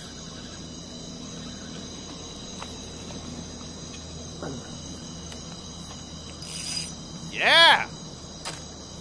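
Crickets and other night insects chirring steadily. About three-quarters of the way through, a man gives one short, loud exclamation that rises and falls in pitch.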